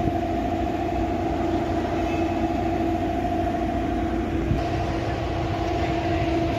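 Diesel bus engine idling steadily, with a steady whine over the engine's noise.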